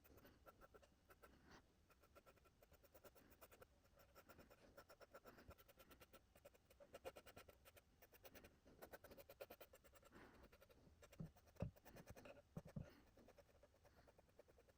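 Faint, fine scratching of a small brush dragging paint over a wooden board, in short repeated strokes, with a couple of soft low thumps about two-thirds of the way through.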